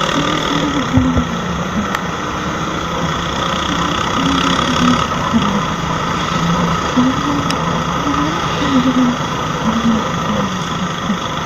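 Motorcycle riding along a town street, heard from the rider's seat: the engine running with a steady wash of wind and road noise, and a low wavering tone that rises and falls every half second or so.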